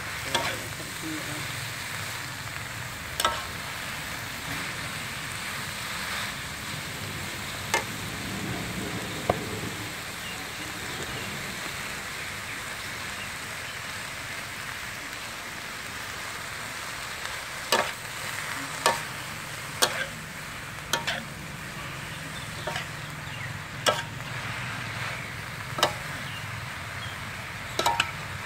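Cabbage and pork sizzling in a metal wok while a metal spatula stirs them. The spatula knocks sharply against the pan now and then, more often in the second half.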